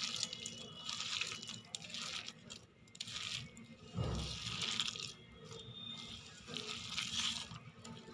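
A bare hand kneading and squeezing a moist mixture of boiled jackfruit, chopped onion and gram flour in a steel bowl, making repeated short mixing strokes about once a second, with a dull thump about four seconds in.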